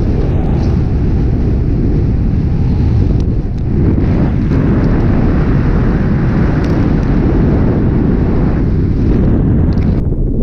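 Wind rushing over the camera microphone of a paraglider in flight: a loud, steady, rumbling buffet of airflow.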